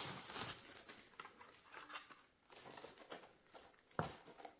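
Faint rustling with scattered small clicks and knocks as household items are handled, and one sharper knock about four seconds in.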